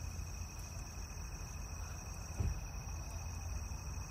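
Night insects calling steadily at a high pitch over a low background rumble, with one dull thump about two and a half seconds in.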